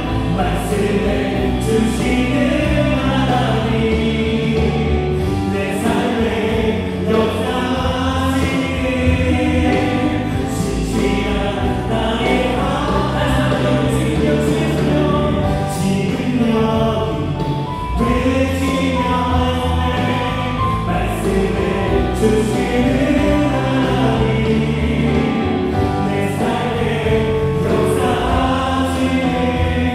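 Live contemporary worship music: a band with electric guitar, bass guitar, Korg Triton and Yamaha Montage keyboards and a drum kit playing a gospel song, with a group of voices singing along.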